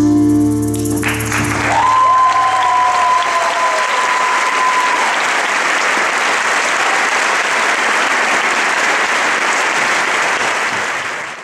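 A song ends on a held chord, then an audience applauds and cheers from about a second in, with a long high tone over the clapping for a few seconds. The applause cuts off suddenly at the end.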